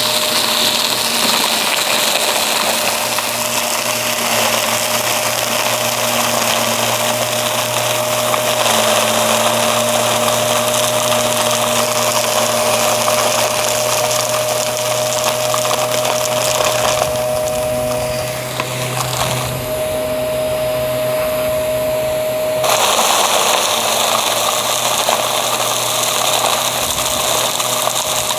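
Aspiron vacuum cleaner running steadily with a motor whine, crackling as it picks up crunchy debris. Its sound turns duller for a few seconds past the middle, then comes back.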